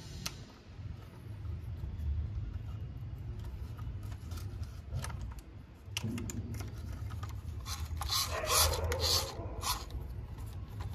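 Small hard parts and tools being handled in workshop restoration work: scattered clicks and a few scrapes, with a louder stretch of scraping from about eight to nine and a half seconds in, over a low steady hum.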